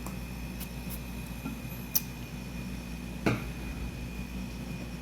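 Two sharp clinks of glass or dishware being handled, just over a second apart, the second with a short ring, over a steady low hum.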